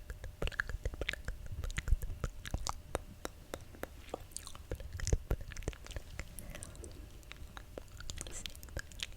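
Close-miked ASMR mouth sounds: a quick, irregular run of wet clicks and smacks from lips and tongue, with a couple of sharper pops about two and five seconds in.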